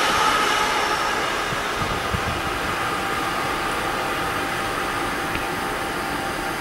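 Container freight train rolling past on the rails, a steady noise of wheels and wagons that slowly grows fainter as the last wagons go by.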